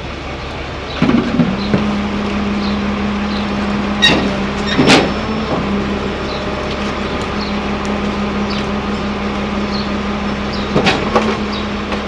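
Garbage truck engine running with a steady hum, with sharp clanks of trash and bins at the rear hopper about four and five seconds in and again near the end.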